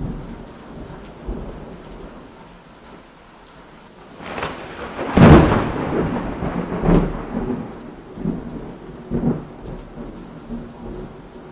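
Thunderstorm: steady rain with a loud crack of thunder about five seconds in, followed by several lower rumbles.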